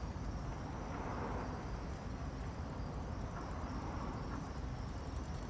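Steady outdoor street ambience: an even low rumble and hiss with no distinct events.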